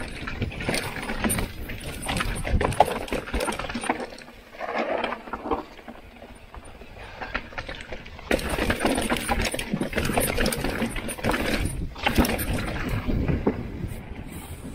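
Mountain bike riding fast down a dry, dusty dirt trail: tyres crunching over dirt and stones, with the bike rattling and knocking over bumps. It eases off for a few seconds in the middle and picks up again from about eight seconds in.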